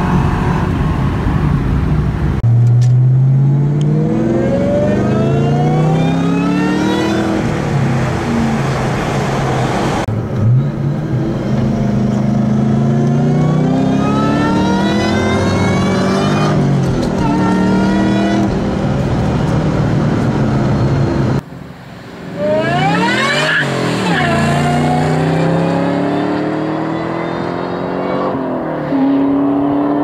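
Supercharged 4.6-litre V8 of a 2003–2004 SVT Cobra pulling hard in several short clips, the later ones with an Eaton roots blower: engine note and supercharger whine climb in pitch and fall back at each gear change. A little past the middle the car goes past at speed, its pitch dropping as it passes.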